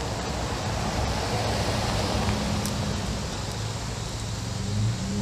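Pickup truck driving past on a paved road, its tyre and engine noise swelling to a peak about two seconds in and easing as it moves away.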